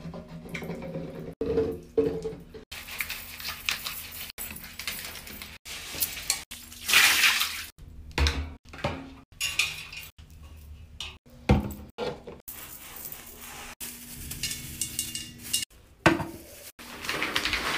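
Household cleaning and tidying sounds cut together from several short clips: hard bottles and objects clinking and knocking as they are set down, including a bottle placed in a metal wire shower caddy, with bursts of hiss and a plastic bin liner rustling.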